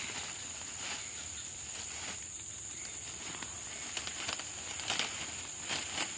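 Camouflage net rustling and crackling in short scrapes as it is pulled and pressed over bushes, most of them from about four seconds in, over a steady high insect drone.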